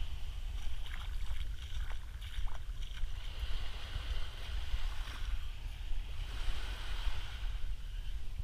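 Small waves lapping and washing up onto a sandy beach, the hiss of the wash swelling and easing, over a steady low rumble of wind on the microphone.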